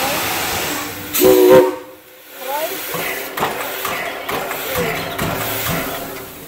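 Steam hissing from the 1938 ex-White Pass and Yukon steam locomotive No. 70, with a short blast of its steam whistle, several tones at once, a little after a second in. After a brief lull, steam hiss continues with scattered irregular knocks.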